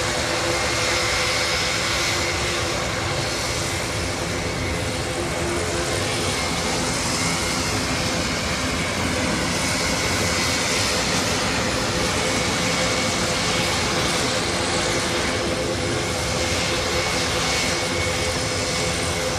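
Engines of a large Airbus aircraft in a flying display: a steady, loud drone with steady tones in it, bending slightly in pitch partway through as it passes.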